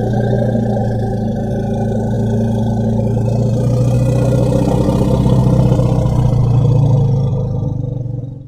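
Godzilla monster sound effect: a low, rough growl held at one steady pitch for about nine seconds, then cut off.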